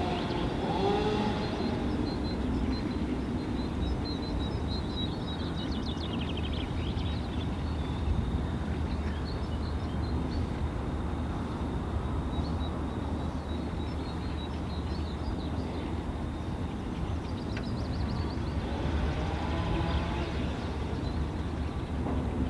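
Outdoor field recording of small wild birds chirping, with a few short trills, over a steady deep rumble.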